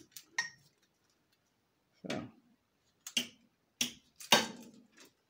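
A handful of short, sharp clicks and knocks of hard objects being handled, scattered with quiet gaps between them; the loudest comes about four seconds in.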